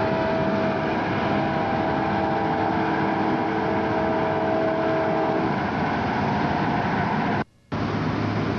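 Steady engine drone with a few held tones that change pitch about five and a half seconds in. The sound drops out for a moment near the end.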